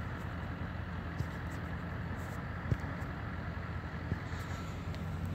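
An engine idling steadily, a low even hum, with a few faint clicks.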